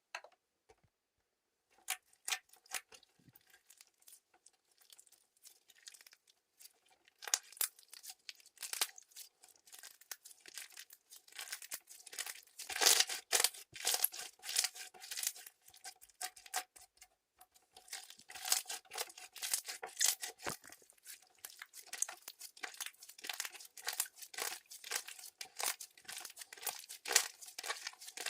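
Clear crystal slime being squeezed, stretched and poked by hand, giving runs of sticky crackling and popping clicks. It starts almost silent, with scattered clicks, and grows denser and louder from about seven seconds in.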